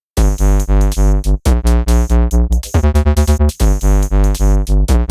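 Electronic music: synthesizer chords pulsing over a heavy bass beat, stopping briefly twice.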